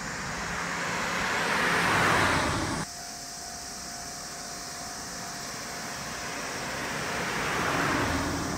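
A road vehicle passing out of view, its noise swelling and fading, cut off abruptly about three seconds in. A second vehicle swells and fades near the end.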